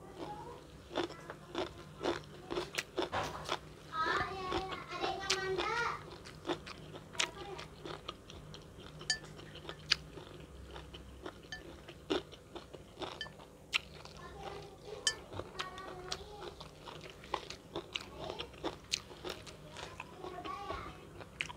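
Close-up eating sounds: crunching bites and chewing of crunchy food, sharp crackly crunches coming irregularly throughout, with a brief hum of voice about four to six seconds in.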